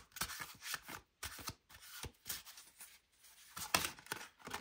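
A deck of tarot cards being shuffled by hand: an uneven run of quick card slaps and rustles.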